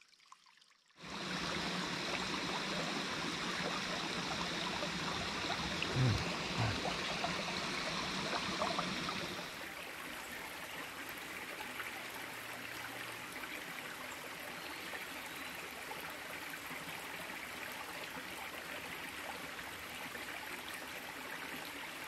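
Small stream water spilling over the lip of an old concrete dam into a pool, a steady splashing trickle that drops to a quieter level a little under halfway through. Two short, soft thuds about six seconds in.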